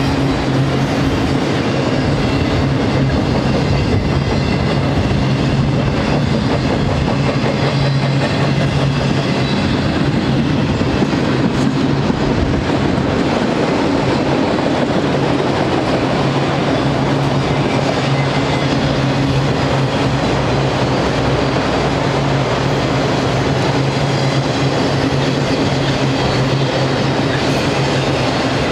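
Freight train of autorack cars rolling past: steel wheels on the rails making a loud, steady rumble with a low hum under it and light clickety-clack from the rail joints.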